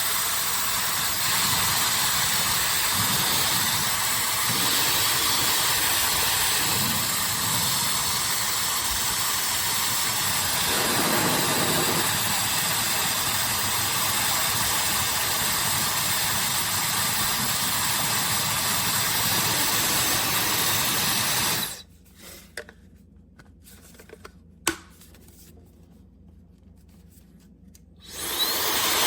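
OSOU 1200 W high-speed hair dryer (110,000 RPM motor) running, a steady rush of air with a thin high-pitched whine on top. It is switched off about 22 seconds in, a click or two follows, and it is switched back on near the end.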